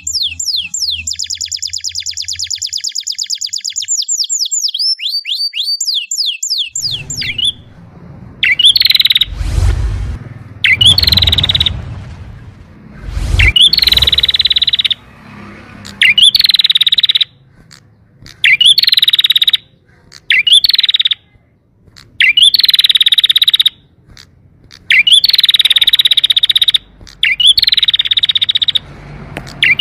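Canary song: rapid, repeated rising chirps and a fast high trill, ending about seven seconds in. It gives way to a different recording of buzzy calls about a second long, repeating every two to three seconds, with a couple of low thumps among the first of them.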